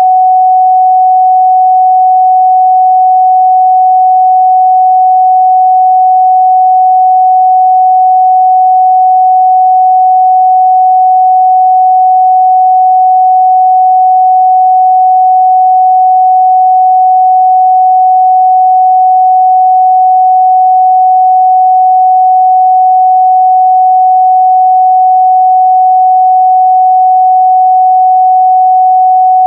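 Continuous 744 Hz sine-wave test tone, a single steady pure pitch held at constant loudness.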